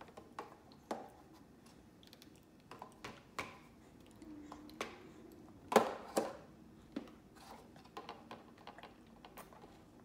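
A paper napkin crinkling and rustling in a toddler's hands, with scattered sharp crackles and taps against a plastic high-chair tray. The loudest pair comes about six seconds in. There is a short hum a little past four seconds.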